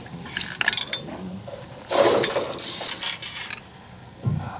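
Small metal and white balls clattering and rolling through a homemade machine of perforated metal construction-kit parts and ramps. The clatter comes in irregular bursts and is loudest from about two seconds in, with a short low thud near the end.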